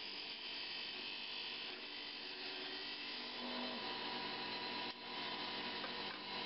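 Wood lathe running with a steady hum while a hand-held turning tool cuts the spinning mahogany blank down toward its final diameter, the tool lifted off the wood partway through.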